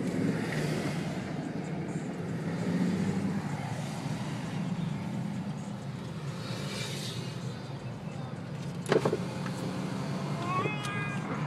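Car driving slowly, its steady engine and road noise heard from inside the cabin. A sharp click comes about nine seconds in, followed about a second later by a brief high squeak that rises in pitch.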